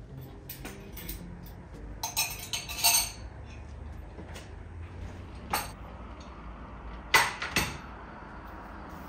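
Dishes and cutlery clinking as they are picked up and set down on a kitchen counter: a cluster of clinks about two to three seconds in, a single one near the middle, and the loudest pair about seven seconds in.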